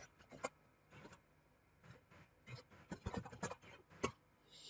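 Faint, irregular clicking of computer keyboard keys being typed, busiest around the third second.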